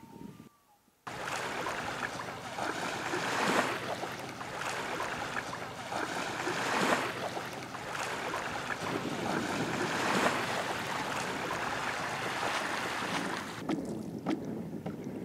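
Waves washing against a sandy lake shore, mixed with wind. The loud, even rushing starts suddenly about a second in and swells roughly every three seconds. Near the end it drops to a quieter wash with small splashes.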